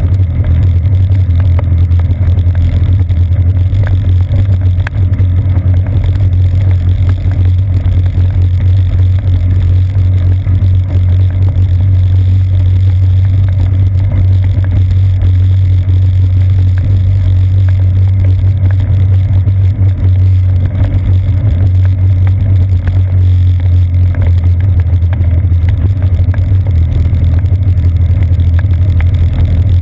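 Road noise of a bicycle riding a wet path, picked up by a GoPro Hero 2 clamped to the seat post: a loud, steady low rumble.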